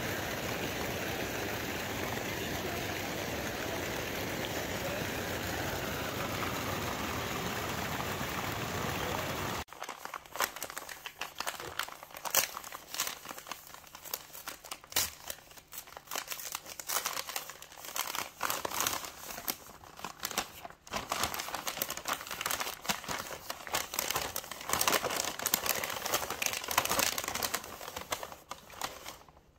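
Steady splashing of a fountain's many water jets falling into its pool. About ten seconds in it cuts to the irregular crinkling and rustling of tissue paper being unwrapped by hand, louder in sharp bursts.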